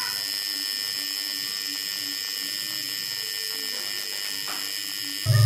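Tattoo machine buzzing steadily as the needle lines a tattoo into skin. A louder low hum comes in near the end.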